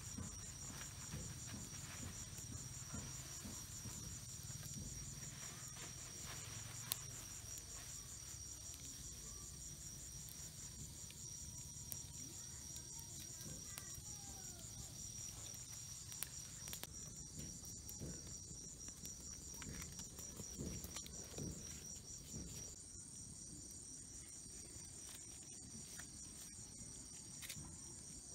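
Night insects, crickets, chirping in a steady, fast-pulsing high trill, with a few faint clicks and rustles now and then.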